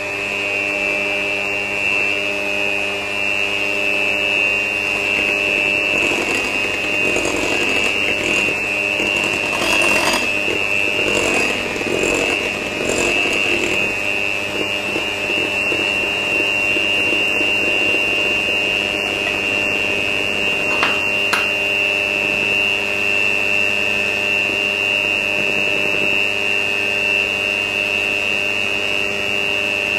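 Electric hand mixer running steadily with a high whine, its beaters churning brownie batter in a glass bowl; the churning sounds rougher for several seconds in the middle as flour is worked in.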